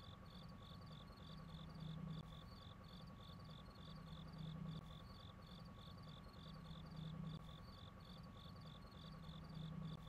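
Faint, even chirping of crickets, about four to five chirps a second, over a low hum that swells every two to three seconds.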